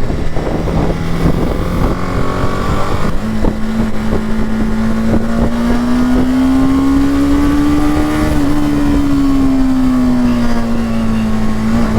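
BMW G 310 GS's single-cylinder engine running while riding, over heavy wind rumble on the helmet microphone. The engine note steps up about three seconds in, climbs slowly, then eases back down near the end.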